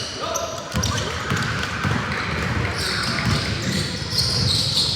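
Basketball game in a gym: the ball thumping on the court at an irregular beat, over a constant background of voices and chatter.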